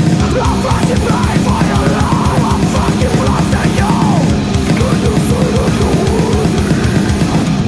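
Groove metal band playing: distorted electric guitars over dense, rapid drumming, loud and unbroken.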